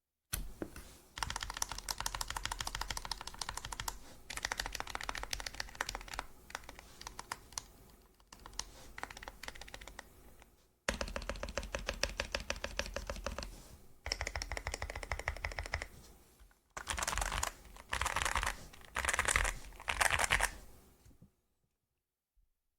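YUNZII AL66 aluminium 65% mechanical keyboard having its keys pressed in long runs of rapid clicking, broken by short pauses, with a few shorter, louder bursts near the end. The keys sound clean, with no stabilizer rattle: the stabilizers are lubed.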